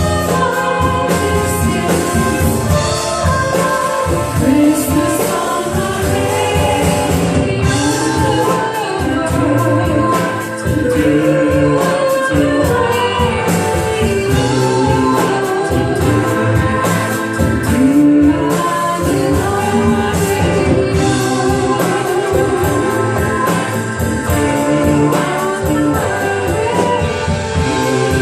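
Live music: singing, possibly several voices together, over a steady instrumental backing with a regular beat.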